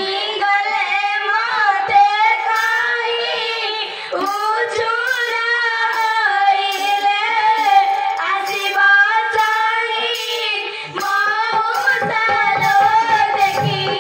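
Young female voices singing a Danda Nacha folk song, with a wavering, ornamented melody over a steady held tone and a light high ticking beat.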